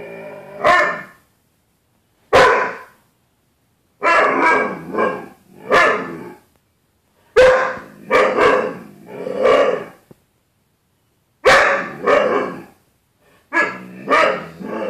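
A dog barking and growl-yowling in its 'talking' way, in clusters of two to four calls with short silent gaps between them, directed at its own reflection in a glass closet door, which it takes for another dog.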